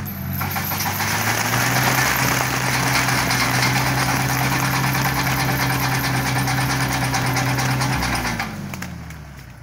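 Tractor engine driving a PTO-powered rope tree shaker that shakes a walnut tree: the engine speeds up right at the start, runs steady under a loud rushing hiss, then winds down from about two-thirds of the way through.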